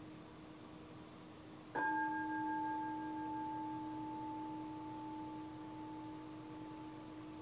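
Zen meditation hall bell struck once about two seconds in, then ringing with a long, slowly fading tone. It is one of the bells that signal the start of a zazen sitting period.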